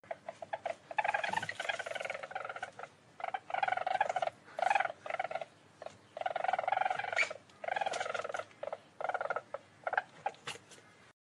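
Weasel trilling: a series of rapid, buzzy trills in bouts of about a second, broken by short pauses and a few sharp clicks near the end.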